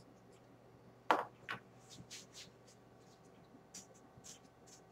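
Faint handling noise from fingers working eye primer onto an eyelid: two short rustles about a second in, then light scattered ticks.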